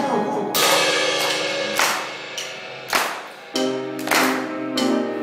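Live band music: drum kit with cymbal crashes about once a second over sustained piano chords.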